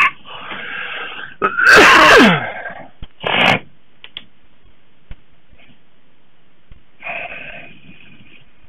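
A person sneezing loudly about two seconds in, with a falling pitch, followed by a shorter noisy breath out about a second later.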